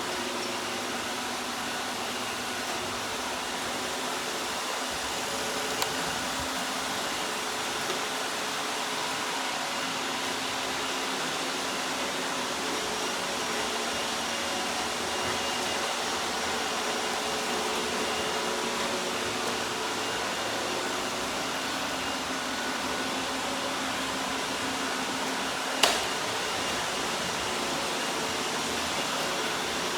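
iRobot robot vacuum running, a steady whirring hum with faint high whines. A few light clicks, and one sharp click near the end.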